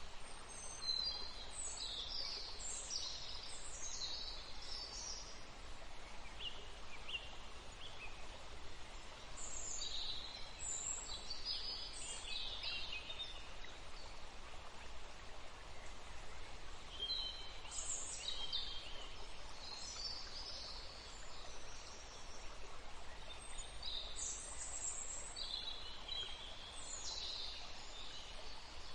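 Birds chirping in four spells of quick, high calls over a steady rushing hiss like running water.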